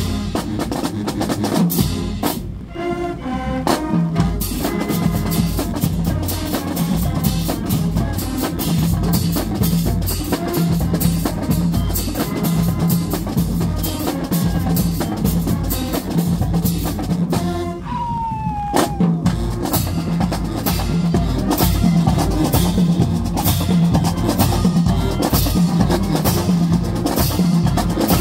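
Marching band drumline playing a fast, loud cadence: snare drums, bass drums and crash cymbals in a steady driving rhythm, with a short break about two to three seconds in.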